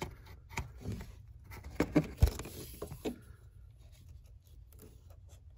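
Handling noise: scattered light clicks and rustles as the camera and flashlight are moved about, dying down to a quiet background after about three seconds.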